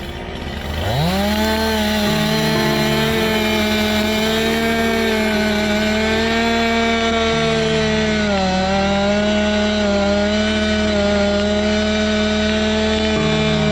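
Two-stroke chainsaw revved up sharply to full throttle about a second in and held at high, steady revs. The pitch sags briefly about eight seconds in.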